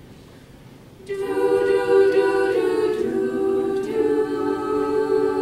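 Women's choir singing a cappella: after about a second of quiet, the voices come in together on a sustained chord, moving to new held notes twice.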